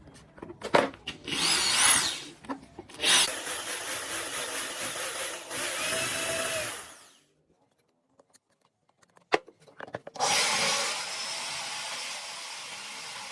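Handheld electric power tool run in three bursts, its motor whine rising as each burst starts, with a few clicks in the gaps between.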